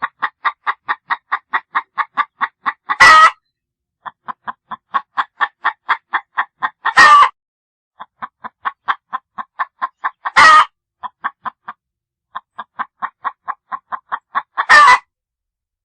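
A hen cackling: runs of quick clucks, about six a second and growing louder, each broken off by a loud harsh squawk, repeated four times at an even pace of about one cycle every four seconds.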